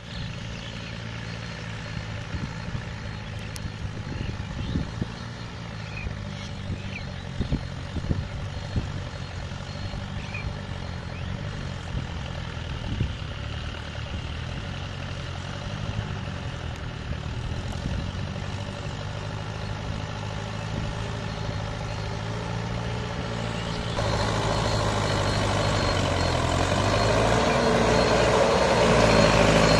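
Mahindra 595 DI Turbo tractor's turbocharged diesel engine running steadily as the tractor works through mud, growing louder as it comes closer. A few light knocks sound in the first half.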